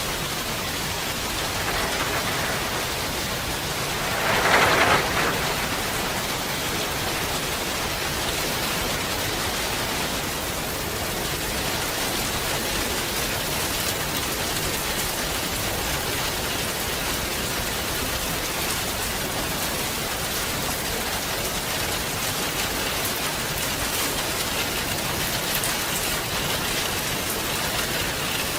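Steady rain falling in a forest, an even hiss with some separate drops. About four seconds in there is a brief louder swell that lasts about a second.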